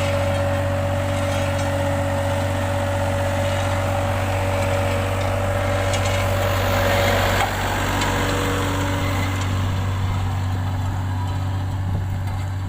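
Road roller's engine running steadily: a low even hum with a steady high whine over it, which dips slightly about seven and a half seconds in.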